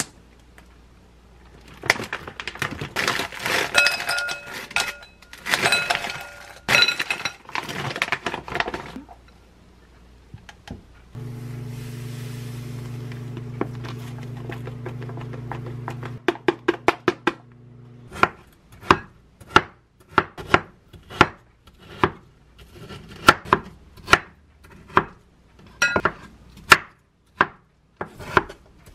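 Kitchen clatter and clinks of dishes and a glass bowl, then a steady electrical hum for several seconds. From about two-thirds of the way in, a kitchen knife chops peach slices on a wooden cutting board in even strokes, about one and a half a second.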